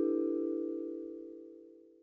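Vibraphone notes ringing on after being struck and fading away to nothing, with a fast regular pulse in their loudness, the tremolo of the instrument's rotating resonator fans.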